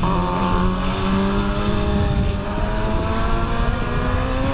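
Inline-four 600 cc sport bike engine heard on board at speed, with heavy wind rush over the microphone. The engine note holds fairly steady through a corner, then rises steadily from about halfway as the throttle is rolled on.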